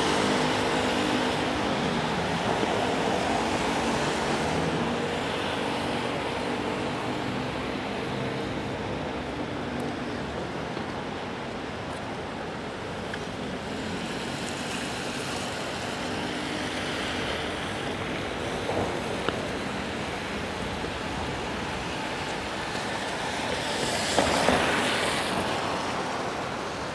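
City street traffic on rain-wet roads: a steady hiss of tyres and engines of passing cars. An engine's hum is heard near the start, and a louder vehicle swishes past near the end.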